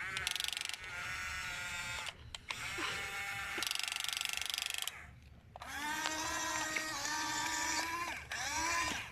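A child's drawn-out, pitched vocal sounds that bend in pitch as they begin, with stretches of rapid buzzing in between.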